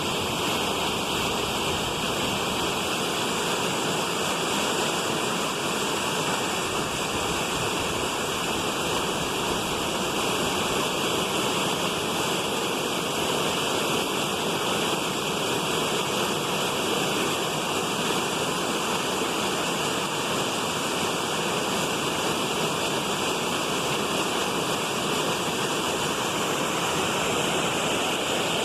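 Waterfall: water falling and rushing with a steady, unbroken sound.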